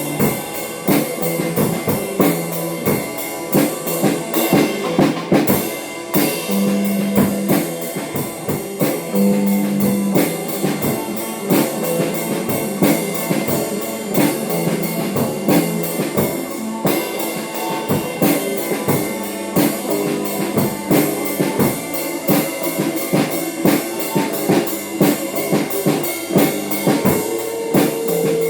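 Live band jam: a drum kit playing a busy, steady beat with a guitar playing held notes over it.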